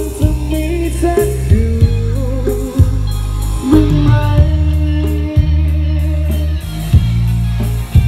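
Loud music through a large PA speaker system: an electric guitar melody with bent notes over heavy, sustained bass notes and sharp drum hits.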